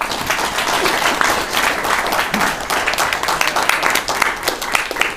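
Audience applauding: many hands clapping densely and at once.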